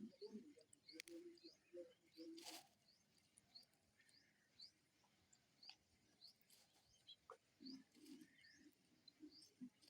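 Faint birdsong: a small bird repeating short, rising, high chirps about twice a second, with low coo-like calls at the start and again near the end. There is a brief rustle about two and a half seconds in.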